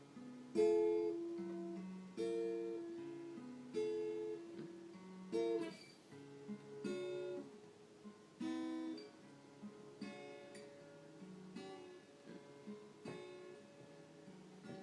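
Acoustic guitar strummed: a loud chord struck about every second and a half, then softer, lighter playing in the second half.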